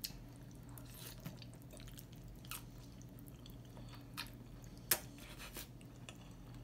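A person eating jajangmyeon noodles with chopsticks: quiet chewing with scattered short clicks, the sharpest about five seconds in, over a faint steady low hum.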